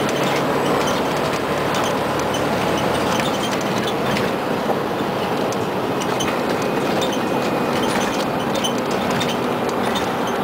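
Scania CN94UA OmniCity articulated bus driving, heard from inside the cabin: a steady engine drone and road noise, with light ticks and rattles from the interior fittings.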